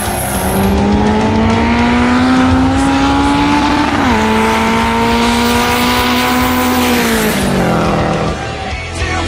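Drag-race car engine at full throttle down the strip. Its note climbs steadily, drops sharply at a gear change about four seconds in, climbs again, then falls away near the end.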